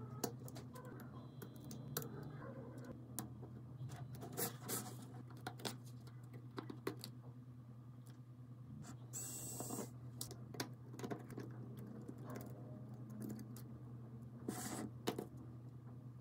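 Scattered light clicks and taps of small repair tools handled on a phone and workbench, over a steady low hum, with a short hiss about nine seconds in.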